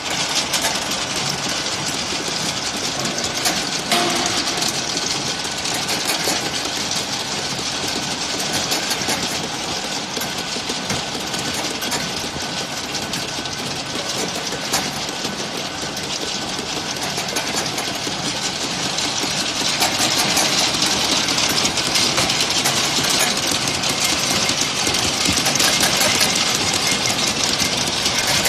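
Ultrasonic bottle washing machine running: a steady, dense mechanical rattle with a hiss, a little louder from about two-thirds of the way in.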